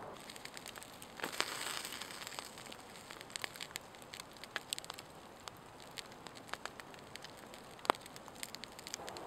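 Wood campfire crackling with scattered sharp pops under skewered meat, with a short burst of hiss about a second in and one louder pop near the end.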